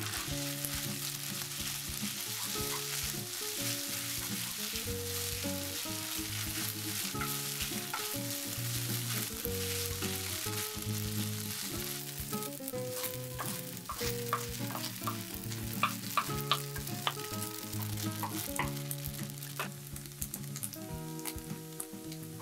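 Instant noodles sizzling in hot oil in a nonstick frying pan while a wooden spatula stirs and pushes them around, with short clicks and taps of the spatula against the pan, more of them in the second half.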